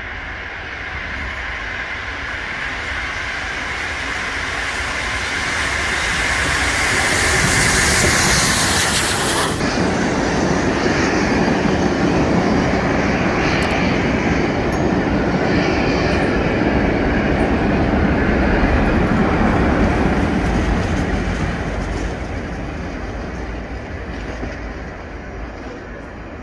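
LNER A3 Pacific steam locomotive Flying Scotsman passing at speed with its train, a rushing hiss building up as it approaches and cutting off suddenly just under ten seconds in. The coaches then rumble and clatter over the rail joints, fading as the train draws away.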